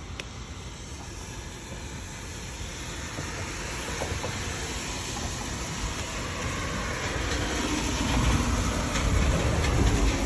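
Rumbling vehicle noise that builds steadily and is loudest near the end, like something heavy drawing closer.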